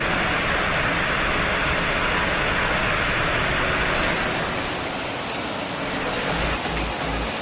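A steady, loud rushing noise with no distinct tones. A low music beat comes in near the end.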